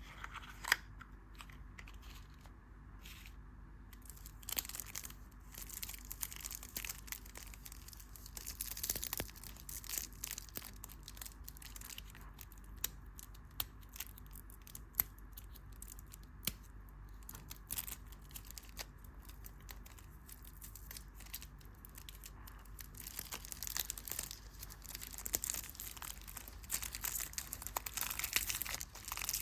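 Candy wrapper being crinkled and torn open, with many small crisp crackles and clicks that grow denser and louder near the end.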